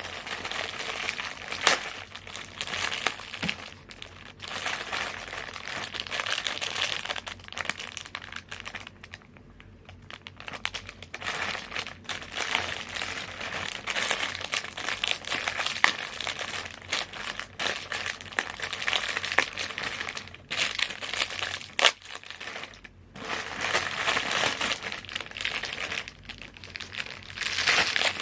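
Plastic chip bag crinkling as it is handled and opened, in bursts of dense crackling with a few short pauses.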